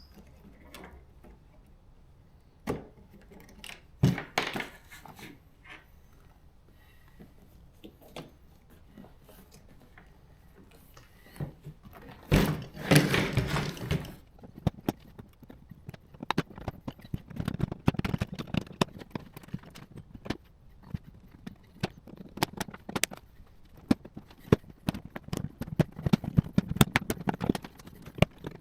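Scattered clicks, knocks and rattles of hands working plastic clips free under a Tesla Model S front seat. A denser stretch of handling noise comes about twelve seconds in, and a long run of quick small clicks follows toward the end.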